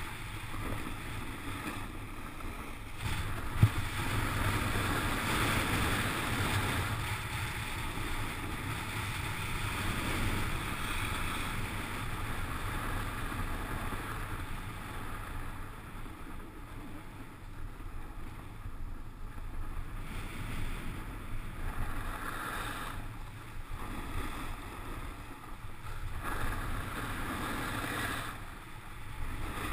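Snowboard sliding and scraping over groomed snow, a hiss that swells and fades several times, over a steady low rumble of wind on the microphone. A single sharp knock about three and a half seconds in.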